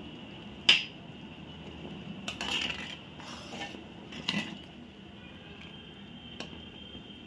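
Steel ladle stirring a thin curry in a steel kadhai, clinking sharply against the pan about a second in, again a few seconds later and faintly near the end, with a short swish of stirring in between.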